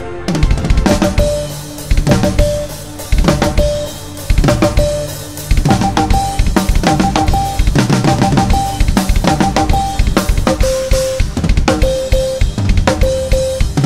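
Drum kit played in a busy pattern of bass drum, snare and cymbal hits, over short steady electronic beeps in Morse-code-like lengths that move to a higher pitch and then a lower one. The drumming becomes denser and more even about five seconds in.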